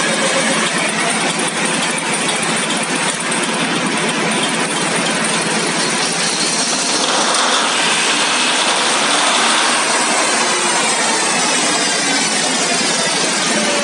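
Deutz 620-series V12 diesel engine running steadily and loudly, with a little more hiss for a few seconds in the middle.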